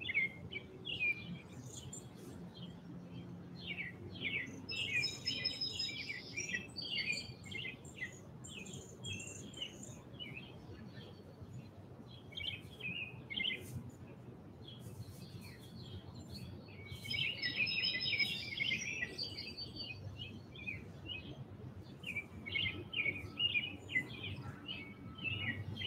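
Several songbirds chirping and singing, quick high twittering calls throughout, busiest about five seconds in and again around seventeen seconds in.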